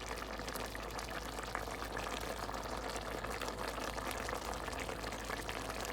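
Alfredo sauce simmering in a pot on the stove: a steady bubbling with many small, irregular pops.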